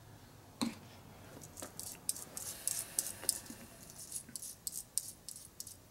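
Small metallic clicks and rattling of a freshly oiled roller bearing being worked in the fingers: one sharp click about half a second in, then a quick, irregular run of light clicks.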